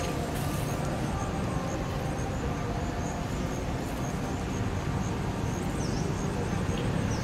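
Steady outdoor background noise with a low rumble, and a faint short high chirp twice near the end.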